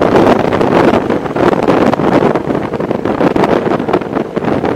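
Wind rushing hard over the microphone of a motorcycle riding at road speed, with the bike's running and road noise mixed in underneath.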